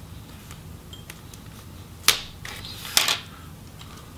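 Plastic display bezel of a ThinkPad T470 snapping loose from the LCD panel as it is pried off by hand: two sharp clicks about a second apart, the second one doubled, each with a brief crackle as the clips and adhesive let go.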